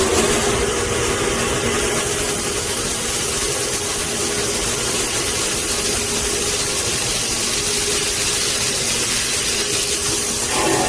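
CNC H-beam drilling machine running steadily: continuous machine noise with a hiss and a steady hum.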